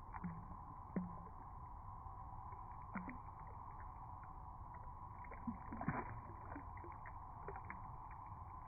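Small splashes and gurgles of shallow stream water around a hand and a trout being let go, over a steady background of flowing water; the splashes are scattered, the strongest about a second in and again near six seconds.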